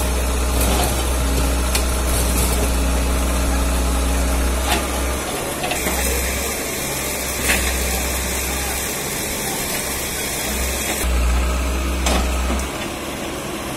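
Backhoe loader's diesel engine running steadily. Its low hum drops away about five seconds in and comes back briefly later.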